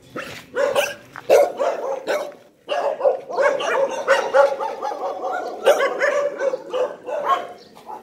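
Dogs barking repeatedly: separate barks at first, then after a brief pause, from about three seconds in, a dense run of overlapping barks from several dogs.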